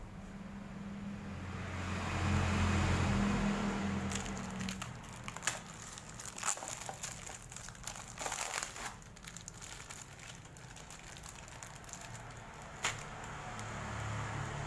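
Packaging being handled and unwrapped, crinkling and rustling with sharp crackles mostly in the middle stretch. A low drone swells over the first few seconds, where it is the loudest sound, and comes back faintly near the end.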